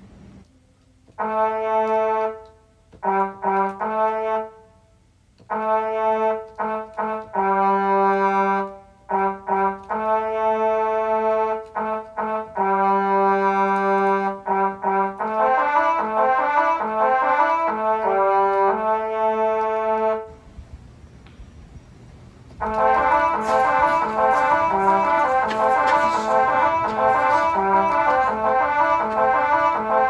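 Brass-led background music: a melody of held notes in short phrases, with gaps between them. It breaks off about two-thirds of the way through, then returns as a fuller, busier passage.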